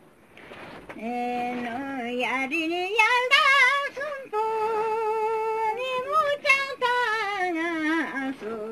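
An elderly woman sings a Ladakhi song alone, with no instruments. She comes in about a second in and the melody climbs with quick wavering ornaments. She holds a long steady note in the middle, then the line sinks back down near the end.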